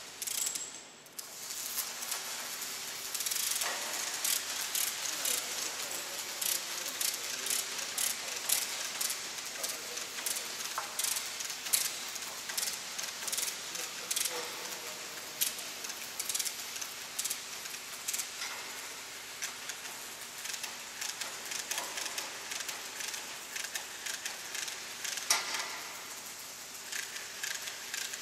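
Continuous crackling and sizzling hiss with many sharp clicks.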